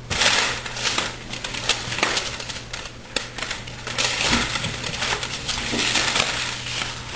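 Plastic vertical blind slats clattering and clicking against each other as a small child pushes through them, in irregular rattling bursts.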